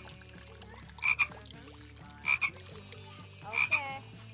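A frog calling: three short double croaks, about one every 1.2 seconds.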